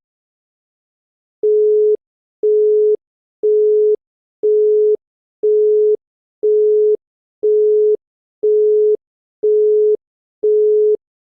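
Italian telephone busy tone: a single steady tone of about 425 Hz, switched on and off in evenly spaced half-second beeps with half-second gaps, ten beeps starting about a second and a half in. The line is engaged or the call has been cleared.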